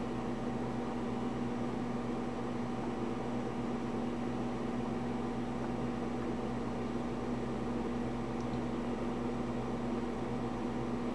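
Steady machine hum with a constant low drone and faint hiss, unchanging throughout.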